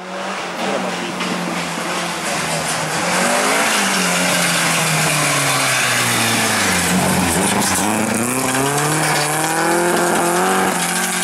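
A Talbot Sunbeam rally car's engine at speed. Its pitch falls as the car brakes into the corner, bottoms out about seven seconds in, then rises as it accelerates away. Its rear bumper is hanging loose and dragging along the tarmac.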